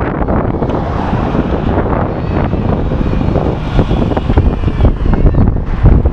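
Wind buffeting the microphone over passing road traffic: a bus goes by, then a car drives past close by near the end, while the wind rumble grows stronger in the second half.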